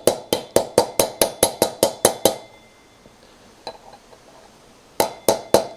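Hammer tapping on a socket to drive a new wheel bearing in by its outer race, light even taps about five a second with a metallic ring. The tapping stops a little over two seconds in and starts again near the end.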